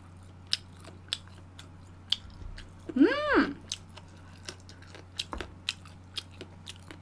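Close-miked chewing and mouth sounds of someone eating spicy braised pork ribs, with scattered sharp wet clicks and smacks. About three seconds in comes a short hummed 'mm' that rises and falls in pitch.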